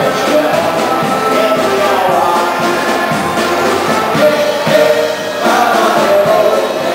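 Live polka band playing a dance tune with a steady beat.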